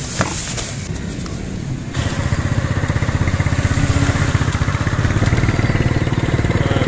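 Background street noise with a few clicks for about two seconds, then, after a cut, a motorcycle engine running close and steadily as the bike rides along, with a fast, even beat.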